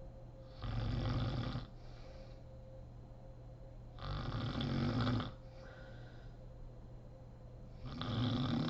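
A sleeping woman snoring loudly: three snores about three and a half seconds apart, each about a second long, with fainter breaths between them, over a faint steady hum.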